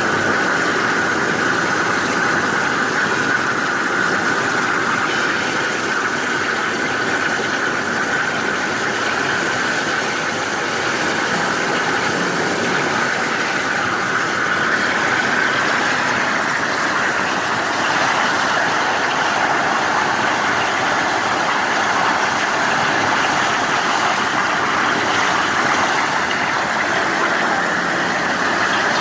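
The oxy-gas cutting torches of a multi-torch CNC strip-cutting machine hiss steadily as they cut. A high whistle runs through about the first half and fades into a broader, even rush.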